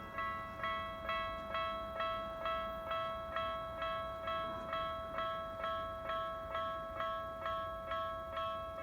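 Japanese railway level-crossing alarm ringing: an electronic bell striking steadily about twice a second, each ding fading before the next.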